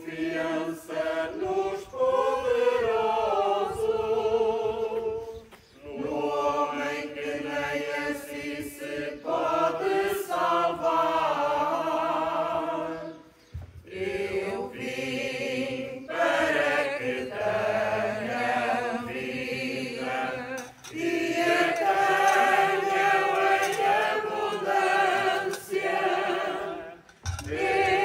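A group of voices singing a slow hymn in long held phrases, with short breaks between lines about every seven seconds.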